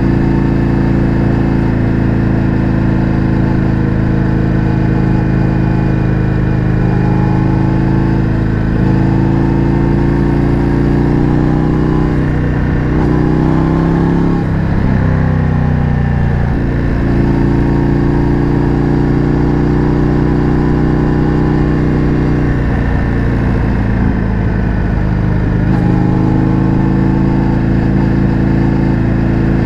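Indian FTR 1200's V-twin engine with an Akrapovič exhaust, heard from the bike on the move, running steadily at cruising revs. The engine note drops and climbs back around halfway through, and again a little after two-thirds of the way in.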